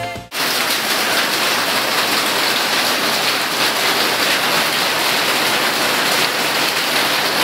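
Heavy rain falling, a dense, steady hiss of drops with no rhythm or pitch in it.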